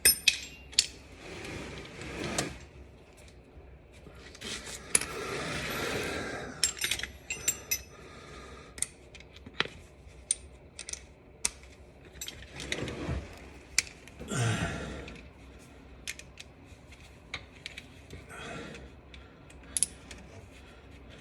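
Hand tools clinking and clicking against metal while working the wire terminal nuts on a car starter: scattered sharp taps and clinks, with a few short rustling swells of movement.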